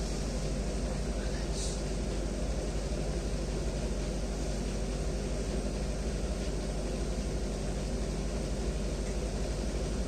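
Steady low mechanical hum with an even hiss over it: room background noise, with no cracks or knocks. A short, faint hiss about a second and a half in.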